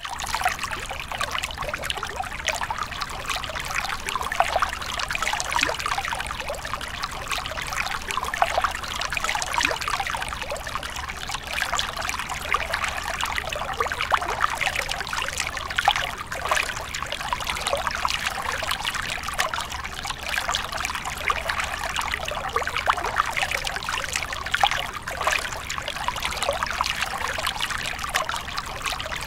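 Water pouring and trickling steadily into water, a continuous splashing stream with many small spatters.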